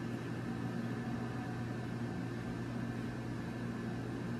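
Steady low hum and hiss of room background noise, even throughout with no distinct sounds.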